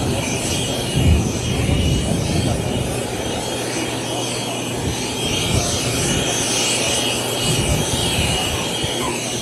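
Gloster Meteor F.8's twin Rolls-Royce Derwent turbojets running at low power as it lands: a steady jet rush with a faint high whine.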